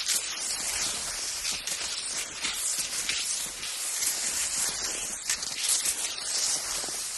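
Skis sliding over snow: a continuous high scraping hiss that swells and eases every second or so.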